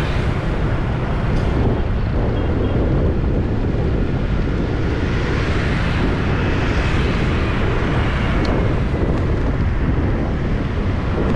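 Steady wind rumble on the microphone with road noise from a moving vehicle riding through city traffic.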